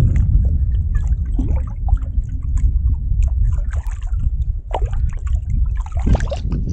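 A hooked white bass splashing and thrashing at the water's surface as it is pulled in and grabbed by hand, with irregular sloshes and splashes over a steady low rumble.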